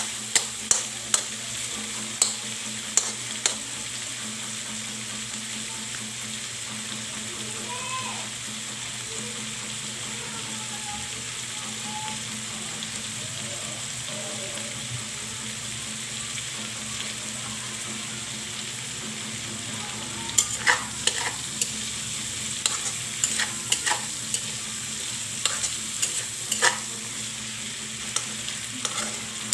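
Pork and vegetables sizzling steadily in a pan while a spatula is stirred through them. It clicks and scrapes against the pan in quick clusters at the start and again through the last third.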